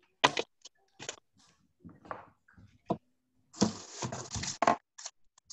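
Scattered sharp clicks and knocks with about a second of rustling noise past the middle: household handling sounds picked up by an open microphone on a video call.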